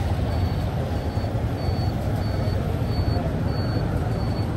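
Steady low rumble of motor traffic in a busy bazaar street, with a faint high beep repeating about three times every two seconds.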